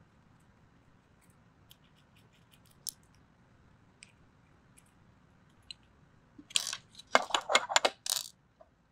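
A hex key working small screws out of a 3D printer's sheet-metal carriage plate. Faint scattered ticks come first, then past the middle a quick run of sharp metal clicks and scrapes lasting about two seconds.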